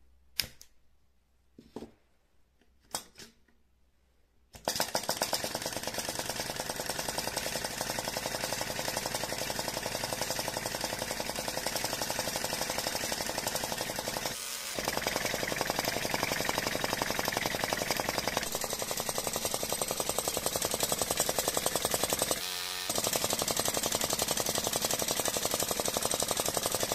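Flame-licker vacuum hot air engine of a model helicopter kit: a few separate clicks, then about four and a half seconds in it starts running fast, with a rapid, even jackhammer-like clatter that dips briefly twice.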